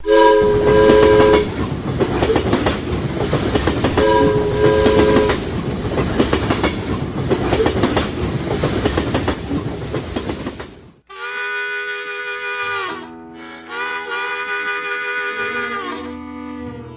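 Steam locomotive running with a dense, steady rush of noise, sounding two whistle blasts of several notes at once, each just over a second long and about four seconds apart. About eleven seconds in the train sound cuts off and harmonica music begins.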